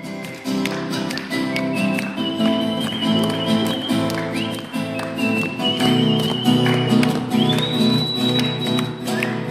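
Acoustic guitars strumming a steady rhythm, with a high melody line above them that slides up into its notes, heard live as an instrumental passage without singing.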